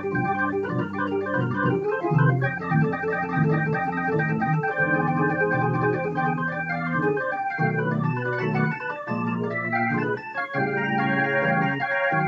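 Electronic keyboard on an organ voice playing a slow blues instrumental break: sustained chords over low bass notes that change every second or so.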